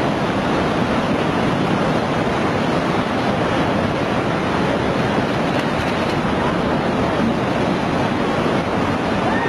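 Tsunami water surging across flooded land: a steady, loud rushing of churning water.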